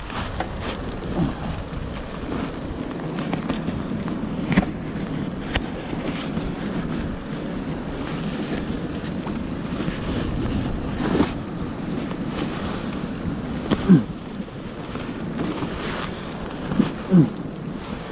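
Steady wind rushing over the microphone, with a few sharp knocks.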